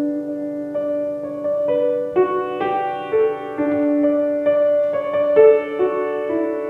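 Slow piano music: a gentle melody of sustained notes, a new note roughly every half second.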